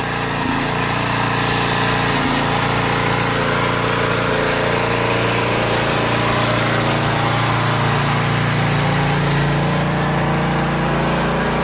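Portable generator's small engine running at a steady speed.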